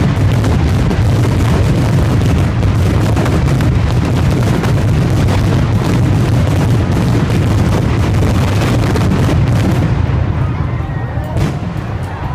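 A dense barrage of aerial fireworks shells bursting overhead: a rapid, continuous run of bangs and crackles over a deep rumble, thinning out about ten seconds in, with one more sharp bang near the end.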